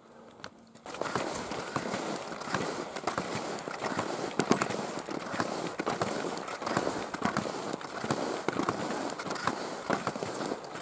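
Skis sliding over crisp groomed snow with ski poles planting, a dense crackling crunch full of sharp clicks that starts about a second in.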